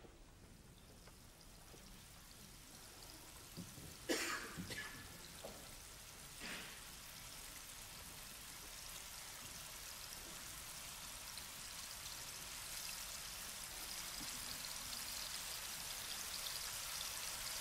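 A rain-like patter and hiss that swells gradually, with a sharp knock about four seconds in and a few softer ones over the next couple of seconds.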